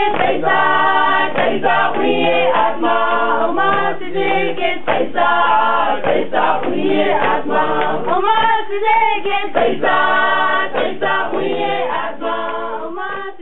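Soundtrack music: a choir singing in several voice parts, starting to fade near the end.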